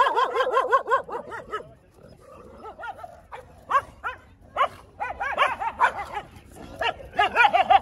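Street dog barking in rapid runs of short, yapping barks, several bursts with brief pauses between, as it confronts other dogs.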